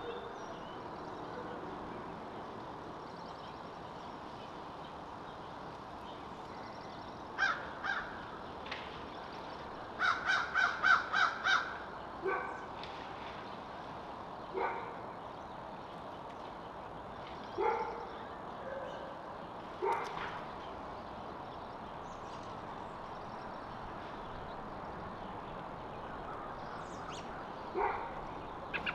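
A backyard bird calling: a couple of calls, then a quick run of about seven around ten seconds in, then single calls every few seconds, over a steady outdoor hiss.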